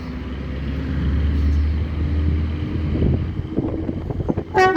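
Class 73 locomotive's diesel engine running with a deep low rumble that grows louder, with some clanks from the train, and the driver's two-tone horn starting to sound loudly right at the end.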